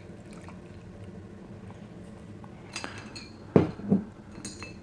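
Homemade absinthe poured quietly from a swing-top glass bottle into a wine glass. About three and a half seconds in, the bottle is set down on a wooden table with a loud knock, followed by clinks of the bottle's swing-top stopper being closed.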